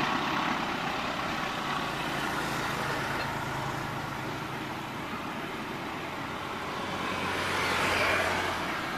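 Passenger train rolling away along the track: a steady rumble of wheels on rail with a low steady hum under it, swelling briefly about eight seconds in.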